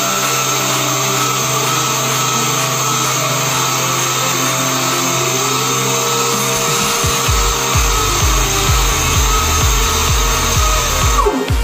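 Random orbital sander running steadily as it sands a plastic bumper molding strip, winding down near the end. A steady low music beat joins about halfway through.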